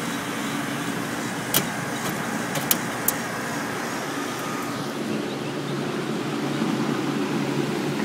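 Bard wall-mounted heat pump running in cooling mode: a steady rush of fan air with a hum that gets louder about five seconds in. A few sharp clicks about two to three seconds in.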